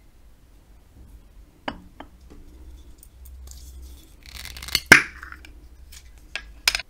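A small glass Bonne Maman jam jar being handled and its metal screw lid twisted open: a short grating noise about four seconds in ends in two sharp clicks, which are the loudest sounds. Light glass clinks come a couple of times before it and twice near the end.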